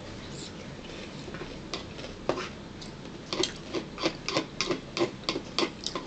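Chewing with wet mouth clicks and lip smacks, a rapid irregular run of about three a second that starts about halfway through.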